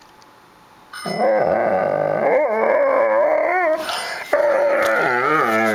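A Doberman pinscher vocalising in two long calls with a wavering pitch, the first starting about a second in and the second after a short break. It is the dog's grumbling, howl-like 'talking' to demand attention.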